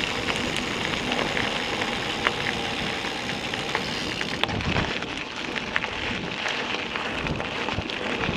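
Mountain bike tyres rolling fast over a gravel forest track: a steady crunching hiss with scattered small sharp clicks.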